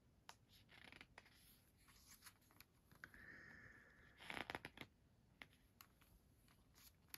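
Faint rustling of paper pages being turned in a booklet, with scattered small clicks and a louder page rustle about four seconds in.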